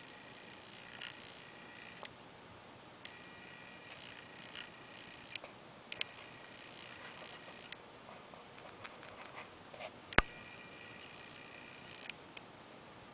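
A small electric motor whining faintly in four short spells, each switched on and off with a click, with one sharp click about ten seconds in.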